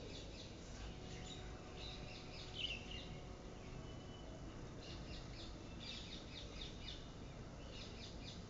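Faint, quick bird chirps in short clusters over a low, steady background hum.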